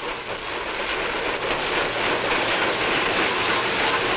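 A freight car rolling over yard switches and rail joints: a steady rattling rumble that grows a little louder in the first second or so as the car comes closer.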